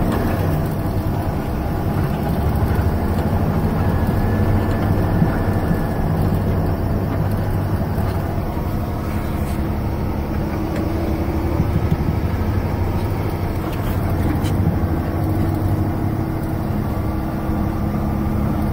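Truck engine running steadily as it drives, heard from inside the cab, with road noise underneath.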